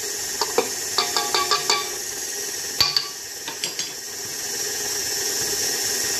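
KitchenAid Artisan stand mixer running steadily, its beater turning cornstarch into creamed butter and sugar in the steel bowl. A quick run of light metallic clinks comes about a second in, and a sharper click near three seconds.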